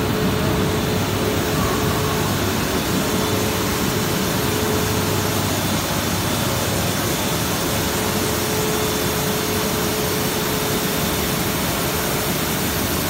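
Plastic recycling and pelletizing line for PP woven bags running: a steady industrial machine noise with a constant mid-pitched whine.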